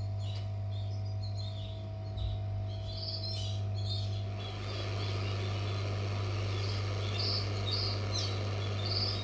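Hot-air rework station blowing with a steady hum and tone; a rushing hiss of airflow grows in about halfway through. Short high chirps sound on and off over it.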